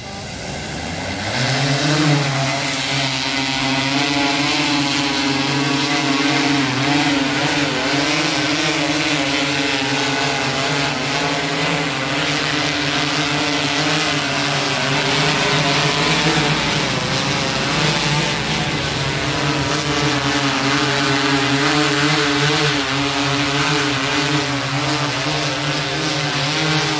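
Multirotor crop-spraying drone's propellers spinning up, rising in pitch and getting louder over the first two seconds, then a loud steady buzz that wavers slightly in pitch as it hovers and manoeuvres.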